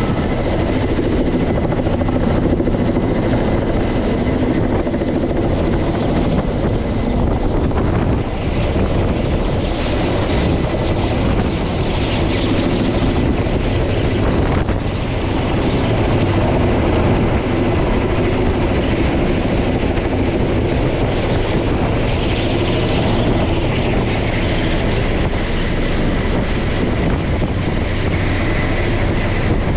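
Kamov Ka-32 helicopter's coaxial twin rotors and twin turbine engines running loud and steady as it hovers overhead carrying an underslung load on a long line, with a faint steady high whine above the rotor noise.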